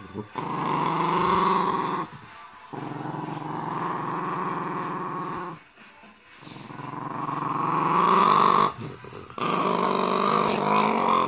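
Jack Russell terrier growling in four long, drawn-out bouts with short breaks between them; the third grows louder as it goes on. The steady growl sounds like a motorbike engine.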